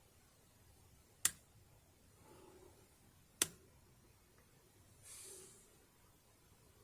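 Two sharp clicks about two seconds apart from a disc detainer pick working the rotating discs of an Abus 88/40 Plus padlock during picking, with soft breathing between them.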